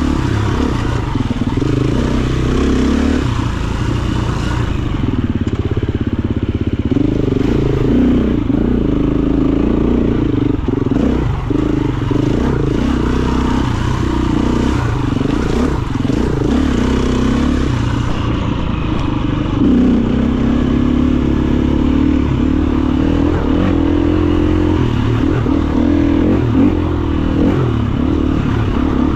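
KTM EXC-F 350's single-cylinder four-stroke engine running hard under load, its pitch rising and falling continuously as the throttle is worked.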